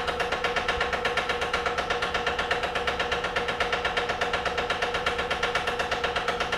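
Vacuum pump of a neon processing manifold running steadily with a fast, even chugging and a steady hum, drawing down the vacuum on the glass tube.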